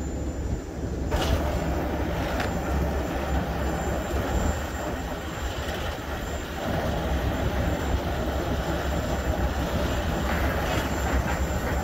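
Fuel tanker truck's diesel engine idling with a steady low rumble; about a second in, a steady hiss and whir comes in as the bypass restarts the fuel pump to clear out the hose.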